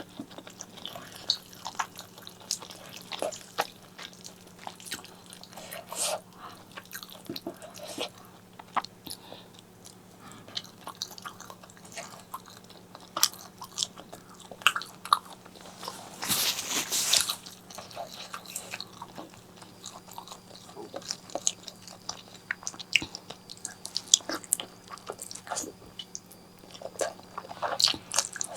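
Close-miked mouth sounds of eating spicy pork leg curry with eggplant and white rice: chewing and biting with many small wet clicks and smacks. A louder hissing noise lasts about a second, about two-thirds of the way through, over a faint steady hum.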